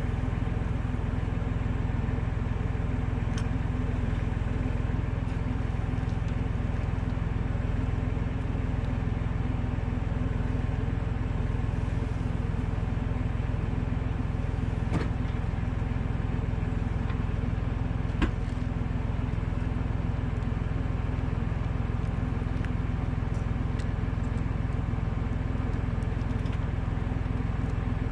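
Valtra A93 tractor's diesel engine running at a steady speed, with a sharp knock about eighteen seconds in and a fainter one a few seconds before it.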